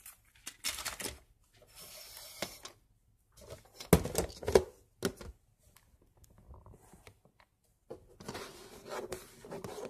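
Small plastic pill containers and a plastic pill cutter being handled, with clicking, rattling and rustling. Two sharp, loud snaps come about four seconds in.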